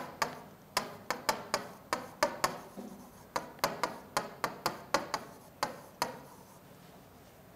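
A pen tapping and clicking against a writing board as words are handwritten: a quick run of sharp taps, about four a second, that stops about six seconds in.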